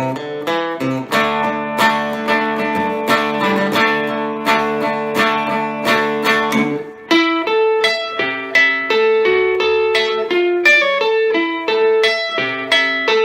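Epiphone Casino hollow-body electric guitar with P-90 pickups, played through a Vox AC15C1X valve amp on its Top Boost channel. It strums ringing chords for about seven seconds, breaks off briefly, then plays a run of single-note lead lines.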